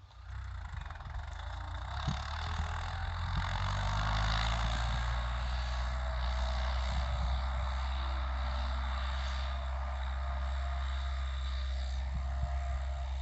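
New Holland TT75 tractor's diesel engine running. It grows louder and its pitch climbs over the first four seconds, then it runs steadily at ploughing speed.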